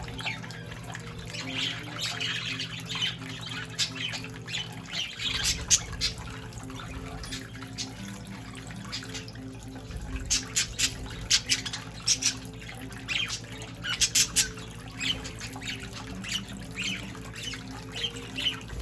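Young budgerigars giving many short chirps and squawks over the running water of a small bathing fountain.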